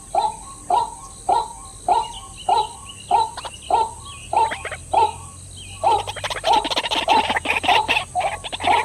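A bird calling repeatedly, about one and a half short calls a second, with the calls coming faster and overlapping from about six seconds in.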